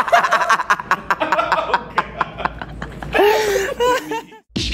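People laughing, in quick repeated bursts for the first couple of seconds, then a shorter laugh a little later.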